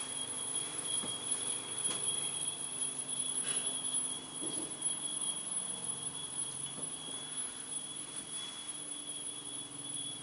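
Quiet room tone carrying a steady high-pitched electronic whine made of two thin tones, with a few faint soft knocks.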